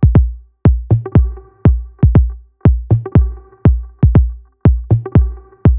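Electronic dance music: a heavy, deep kick drum about twice a second under a held synth chord.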